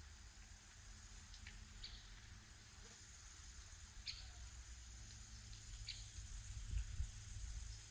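Quiet walking ambience: a steady low rumble with a few faint short ticks, and two soft footfalls near the end.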